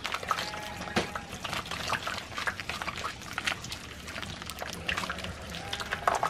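Wet squelching of cooked manzanilla pulp squeezed by hand through a cloth bag, with juice dripping and trickling into a copper pot. It comes as many irregular small squishes and drips.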